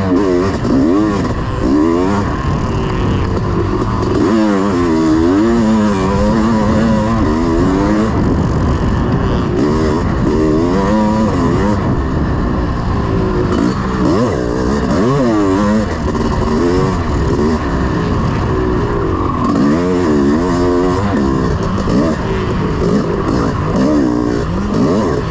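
1986 Honda CR500's two-stroke single-cylinder engine being ridden hard in a motocross race. It revs up and drops back over and over, its pitch rising and falling with each burst of throttle and gear change.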